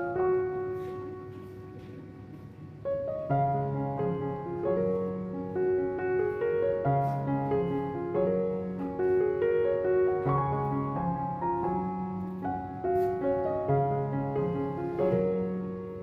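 Background piano music. A held note fades away at the start, then a gentle melody picks up again about three seconds in and carries on at a steady pace.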